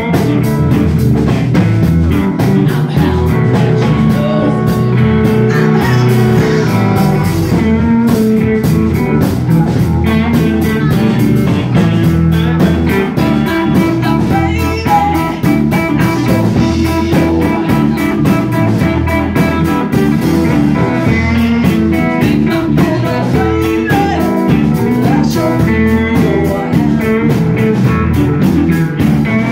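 Live blues band playing a song on electric guitar, bass guitar and drum kit, steady and loud throughout.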